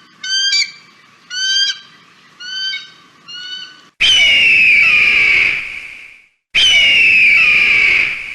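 Eagle calls: a run of five short yelping calls, then two long, loud screams that slide downward in pitch, each lasting about two and a half seconds, starting and stopping abruptly.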